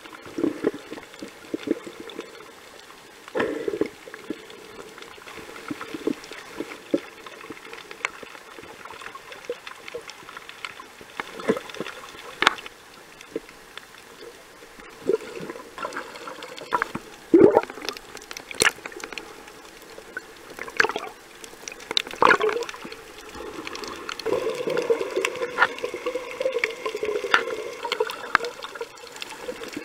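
Underwater sound picked up by a snorkeler's submerged camera: muffled water movement with irregular bubbling pops and clicks, some of them sharp and loud.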